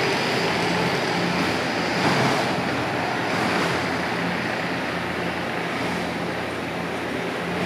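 Steady rushing background noise with a faint low hum underneath and a brief swell about two seconds in.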